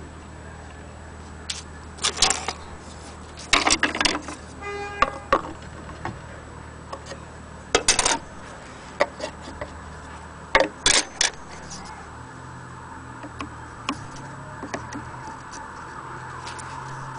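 An antique Black Forest cuckoo clock being handled: metal parts clink and rattle in four short bursts, with a brief squeak about five seconds in.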